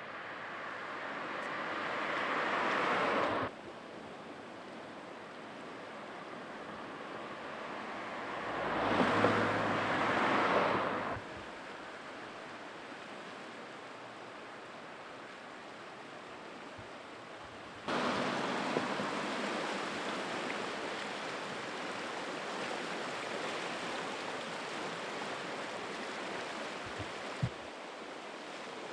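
Two passing road vehicles swell and fade in the first half, the first cut off abruptly. Past the halfway point a steady rush of fast-flowing floodwater takes over.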